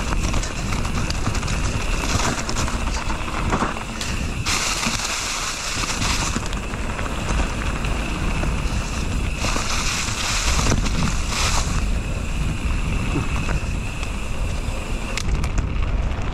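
Mountain bike riding noise picked up by a GoPro: wind rumbling on the microphone over the rolling of the bike on the trail, with two spells of louder hiss about four and a half and nine and a half seconds in.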